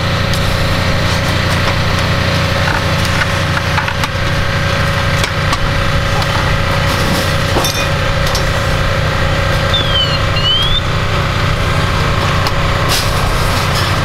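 An engine running steadily, a continuous low drone, with a few scattered knocks and clatter from the ladder work, and two brief high chirps about ten seconds in.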